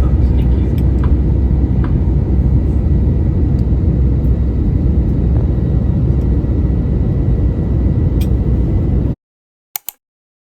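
Steady low rumble of jet engines and airflow inside an airliner cabin during the flight. It cuts off suddenly about nine seconds in, followed by two faint clicks.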